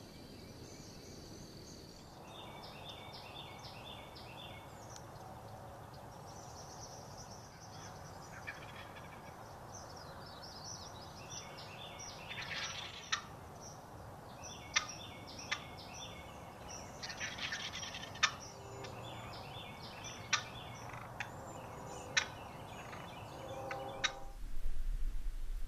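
Wild turkeys gobbling and calling while small birds sing, with a run of sharp, loud calls in the second half. Near the end the birdsong cuts off and a low rumble takes over.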